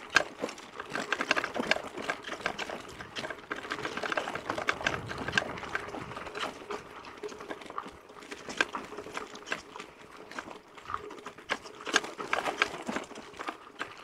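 A mountain bike rattling and clattering over a rough dirt and stone forest road: fast, irregular clicks and knocks from the frame, chain and tyres as the bike is shaken.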